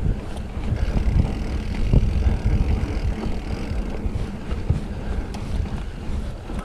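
Wind buffeting the action camera's microphone as a Specialized Fuse mountain bike rolls along a dirt singletrack, with irregular low thumps and rumble from the tyres and bike going over bumps.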